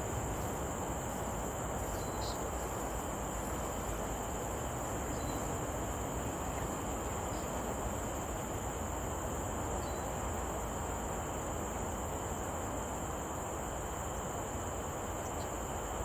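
Steady drone of insects in forest ambience, a constant high-pitched chirring over an even low rushing noise.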